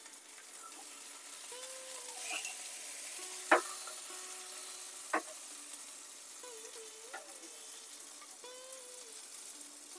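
Whole masala-marinated fish sizzling as it shallow-fries in mustard oil in a frying pan, being turned over with a metal spatula. The spatula clicks sharply against the pan twice, at about three and a half and about five seconds in.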